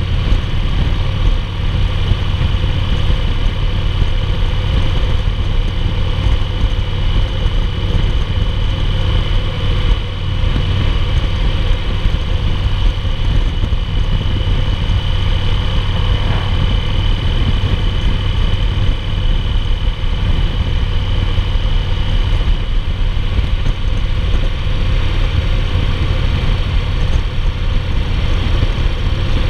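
Engine of a 2008 Yamaha Roadliner (XV1900), an air-cooled V-twin, running steadily at highway cruising speed, heard from the saddle with wind noise.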